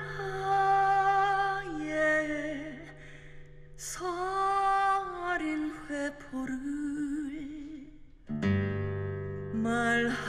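A song played through handmade onggi (earthenware jar) speakers, with a singer holding long, wavering notes over acoustic guitar and short breaks between phrases.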